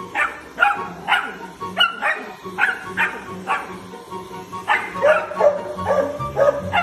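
Golden retriever puppy barking at a stick vacuum's floor head: about a dozen short, high yaps that drop in pitch, coming roughly two a second, with background music underneath.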